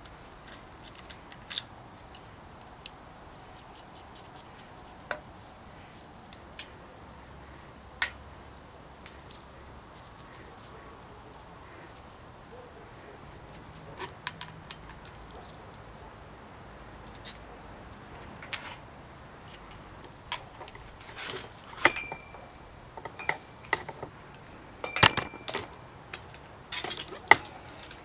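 Scattered metallic clicks and clinks of bicycle parts handled during disassembly: brake caliper, then headset spacers and stem being lifted off the fork steerer. Sparse at first and busier in the second half, with two brief metallic rings near the end.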